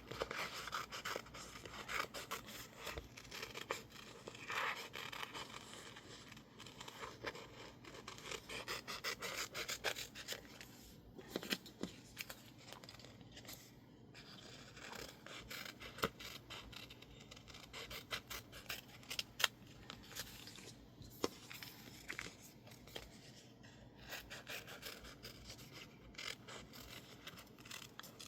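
Scissors snipping and scraping through sticker label paper, with small sharp cutting clicks and paper rustle.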